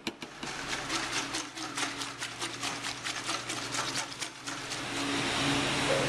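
Curing brine stirred by hand in a plastic bucket: a quick, regular scraping of the stirrer against the bucket, several strokes a second. It stops about four and a half seconds in, leaving a steady background hum.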